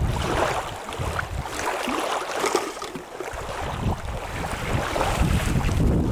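Wind buffeting the microphone in gusts. The low rumble eases off for a couple of seconds in the middle, while a rough, crackly hiss carries on.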